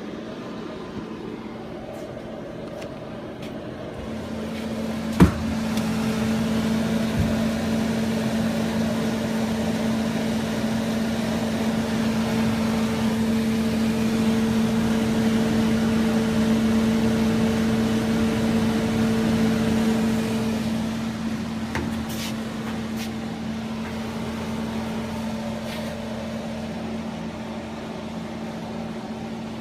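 Silverking SKF2A commercial refrigerator running with a steady electric hum and a low tone. It grows louder through the middle and then eases off, with a sharp click about five seconds in.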